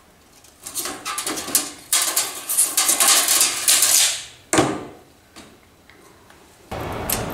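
Steel tape measure being handled and reeled in: a few seconds of dense rattling clicks and rasps, then a single sharp clack. A steady low hum comes in near the end.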